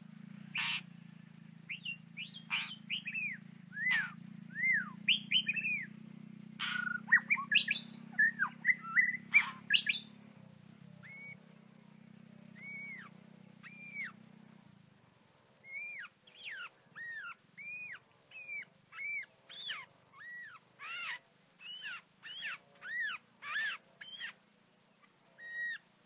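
White-rumped shama calling: a string of short whistled notes, each rising and falling, mixed with sharp clicking notes, thickest in the first half and then in an even run of notes about twice a second. A low hum underneath stops about halfway through.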